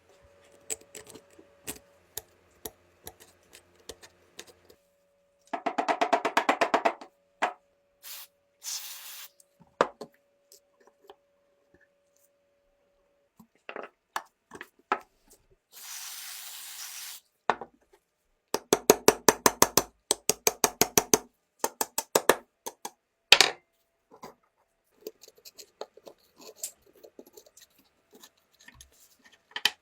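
Small metal parts being handled and worked by hand: scattered clicks and taps, two runs of rapid ticking, and two short hissing bursts.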